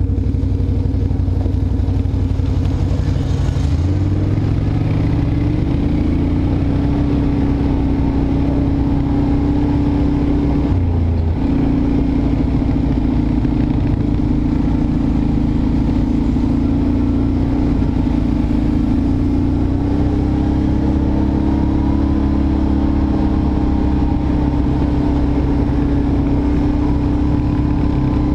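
ATV engine running under way on a gravel trail. Its pitch rises about four seconds in, dips sharply for a moment near eleven seconds, then climbs again about twenty seconds in as the throttle changes.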